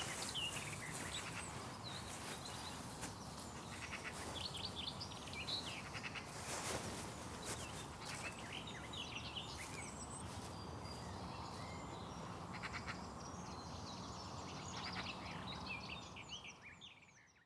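Small wild birds chirping and singing over a steady background hiss, fading out near the end.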